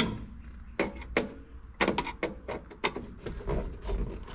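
Irregular sharp clicks and knocks, about a dozen, as a Corsa instrument cluster is handled and pushed into place in a car's dashboard.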